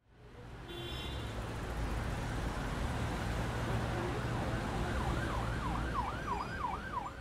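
Steady street noise fading in, with a siren wailing rapidly up and down near the end.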